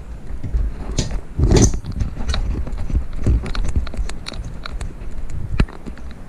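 Irregular clicks, knocks and rattles of objects being handled, with a heavier thump about a second and a half in and a sharp knock near the end.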